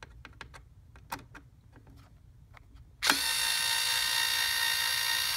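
A few faint clicks, then about three seconds in a cordless electric screwdriver's motor starts suddenly and runs with a loud, steady whine, driving out the single Phillips screw on an air purifier's rear panel.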